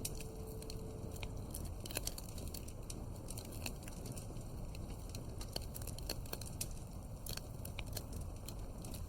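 Wood fire crackling in a fireplace: irregular sharp pops and snaps over a steady low hiss.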